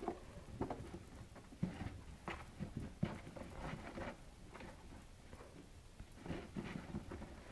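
Cats pawing and clawing at a cardboard box from above and from inside: irregular light scratches, scrapes and taps on the cardboard, in several short flurries.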